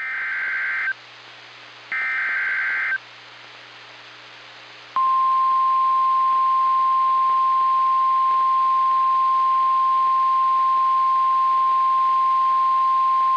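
NOAA Weather Radio alert: two short bursts of SAME header data, a buzzy digital warble, then about five seconds in a steady single 1050 Hz warning alarm tone, over radio hiss. The tone alerts that a Severe Thunderstorm Warning is about to be read.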